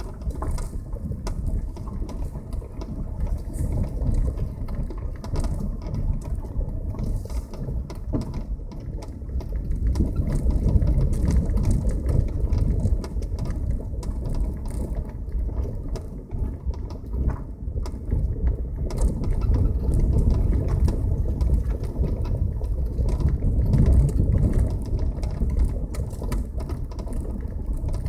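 Passenger car driving over an uneven road: a steady low rumble with many small rattles and knocks throughout.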